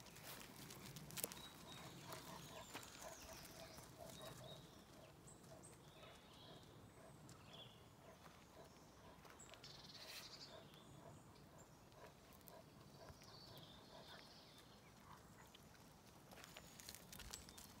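Faint footsteps crunching on a gravel yard, with scattered light crunches and clicks that grow louder near the end. Faint high chirps come in now and then.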